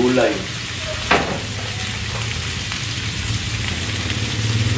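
Pork meat, fat and garlic frying in oil in a wok, sizzling steadily, with one sharp tap about a second in.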